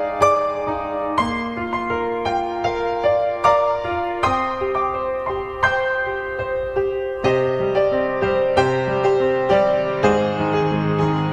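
Background music: gentle piano playing single notes over held lower notes.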